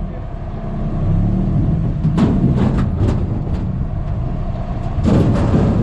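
Open off-road buggy's engine running while it drives over a rough track, a steady low hum. Brief clattering knocks come about two to three seconds in, and a louder noisy surge near the end.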